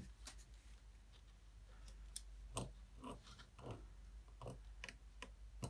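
Faint, irregular light clicks and taps, about eight of them, as a soldering iron tip and solder wire touch the pins and pads of a perfboard while a corner of an IC socket is tacked in place.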